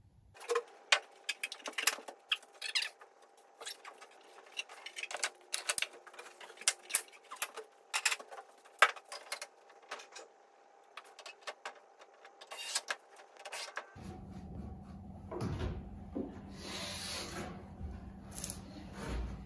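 Irregular light clicks and knocks of plywood panels and wooden battens being handled and set in place. About two-thirds of the way through, a low steady hum comes in under a few scattered knocks.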